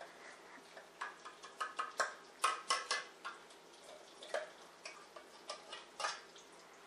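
A spoon clinking and scraping against a metal mixing bowl as thick mayonnaise dressing is spooned out over shredded lettuce: irregular light taps and clicks, busiest about two to three seconds in, with another sharp tap about six seconds in.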